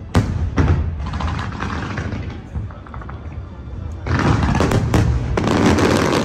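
Aerial fireworks shells bursting: a sharp bang just after the start and another about half a second later, then a thick run of bangs and crackle from about four seconds in, the loudest part.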